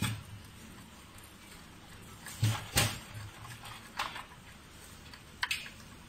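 Scattered small clicks and taps of plastic wire connectors and a screwdriver being handled on the key-cutting machine's wiring, five or so in all, the two loudest close together a little before the middle.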